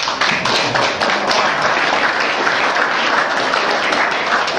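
Audience applauding: many people clapping together in a dense, steady patter.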